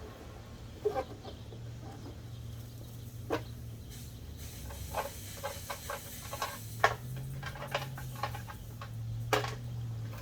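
Short plastic clicks and knocks as a center console's plastic parts are handled and fitted into a Jeep XJ, coming thicker in the second half, over a low steady hum.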